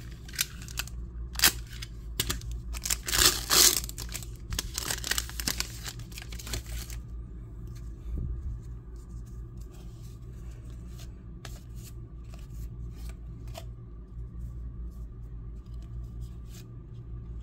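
Trading card pack wrapper being torn open and crinkled, loudest in the first few seconds. After that, the cards are handled with sparse faint clicks over a steady low hum.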